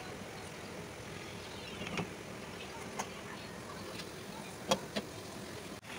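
Spatula stirring thick, buttery curry gravy in a pan, with a few sharp taps of the spatula on the pan over a steady background noise; the loudest are two taps close together near the end.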